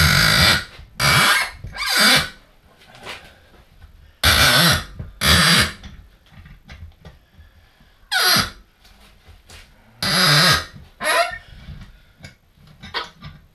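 A seized, sheared bolt squealing in its threaded hole as it is worked back and forth with a spanner on a welded-on 17mm bolt. It comes in repeated short, harsh squeals, one falling in pitch about two-thirds of the way through. The squealing marks the rusted threads being forced to turn.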